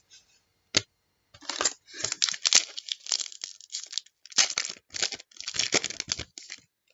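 A trading card pack wrapper being torn open and crinkled by hand, in irregular rustling bursts after a single click.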